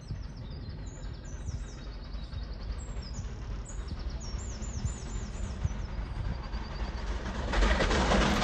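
Small birds chirping in quick repeated phrases over a low rumble as the Merchant Navy class steam locomotive 35028 Clan Line approaches. About seven and a half seconds in, a much louder steady rush comes in as the train draws nearer.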